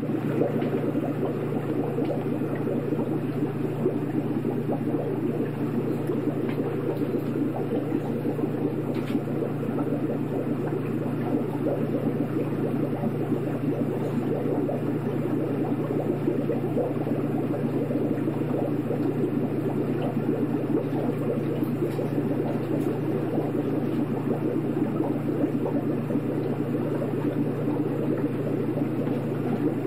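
Aquarium water bubbling steadily over a low, even hum.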